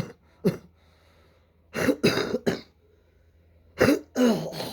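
A man coughing and clearing his throat in short bouts: a single cough about half a second in, then a cluster of coughs around two seconds in and another near the end.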